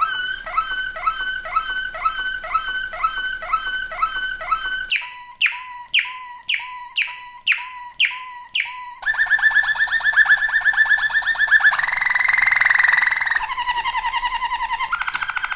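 Malinois (Waterslager) canary singing a chain of song tours. First comes a chirping phrase repeated about two and a half times a second. About five seconds in it changes to clear falling notes about twice a second, then to fast rolling trills that step up and down in pitch every second or two.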